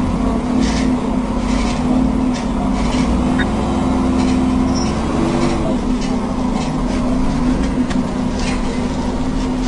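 Alexander Dennis Enviro 400 double-decker bus's diesel engine running steadily under way, heard from inside on the upper deck, with a low drone and a slight change in engine note about halfway through.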